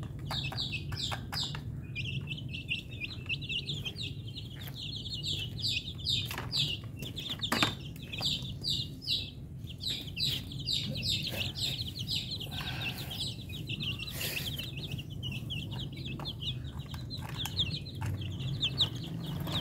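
Young chicks peeping continuously, many short high falling calls overlapping, with a few sharp taps and a low steady hum underneath.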